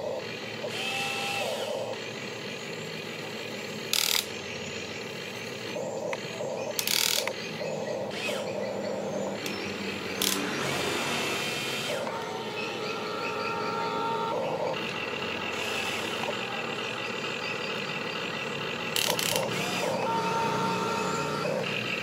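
Huina RC excavator's electric motors and plastic-and-metal gearing whining in short runs at several different pitches as it slews and works its boom and arm, with steady gear chatter and a few sharp clicks.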